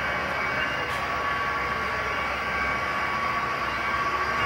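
Model trains running on a club layout: a steady mechanical whirring hum with several thin steady whining tones over it.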